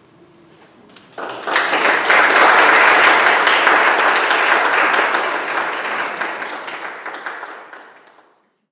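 Audience applause for a classical guitar duo. It breaks out about a second in, builds quickly, then tapers off and cuts out shortly before the end.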